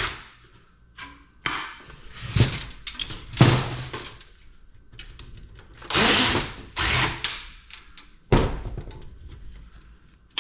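A power screwdriver running in short bursts, with metal clunks, as a hard drive is unscrewed and pulled from a desktop computer case. A sharp knock comes about eight seconds in.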